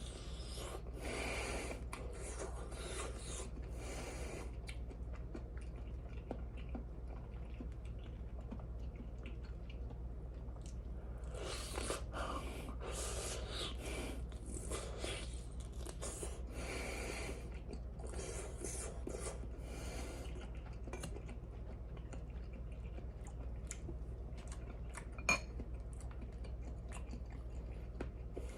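A person chewing food in stretches, over a steady low hum, with one sharp click late on.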